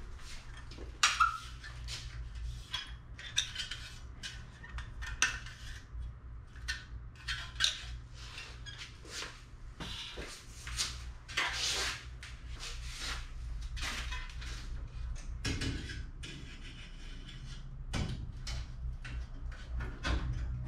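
Light metallic clinks, taps and scrapes of hand tools handling aluminum sheet-metal aircraft parts, coming irregularly, over a low steady hum.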